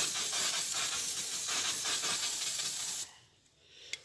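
Aerosol can of silicone spray hissing in one steady stream, cutting off about three seconds in.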